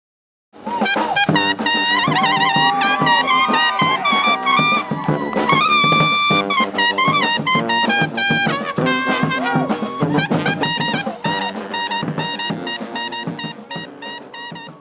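Brass band playing, horns over drums. It starts suddenly about half a second in and fades out near the end.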